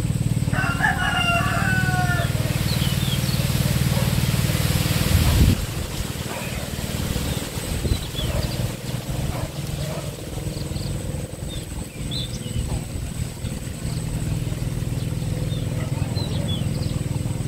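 Hand tractor engine running steadily, louder for the first five seconds and then quieter. A rooster crows about a second in, and small birds chirp now and then.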